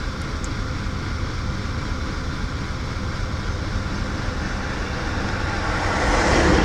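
1999 Acura TL 3.2's V6 idling roughly, its idle speed hunting up and down, a fault the title puts down to a bad idle air control valve. Near the end a rushing sound grows louder as the A/C condenser fan comes on.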